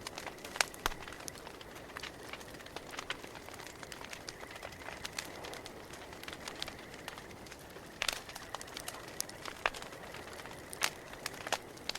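Campfire crackling: irregular pops and snaps of burning wood over a low steady hiss, with sharper snaps about half a second in and about eight seconds in.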